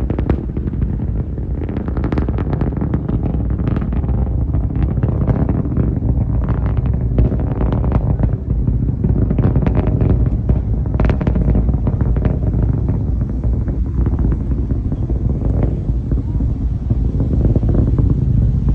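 SpaceX Falcon 9 rocket's nine Merlin engines heard from afar during ascent: a loud, continuous low rumble shot through with rapid sharp crackles, the crackling thinning out in the second half.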